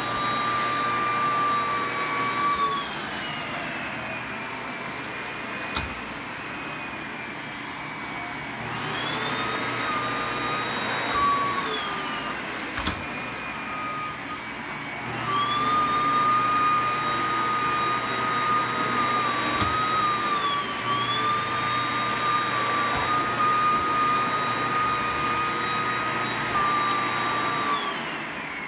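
Hitachi CV-PU20 vacuum cleaner running with a high, crying whine over its motor noise, an abnormal sound that a new filter has not cured and whose cause is unknown. The motor's pitch falls and rises several times, and the whine comes and goes, strongest at the start and through the second half.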